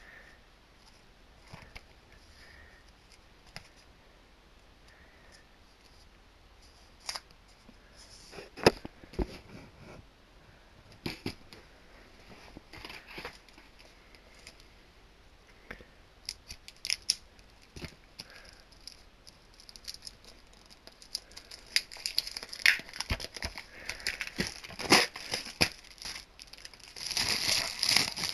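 DVD box-set packaging being opened by hand: scattered clicks and taps, then crinkling and tearing of plastic wrap that grows busier and louder toward the end.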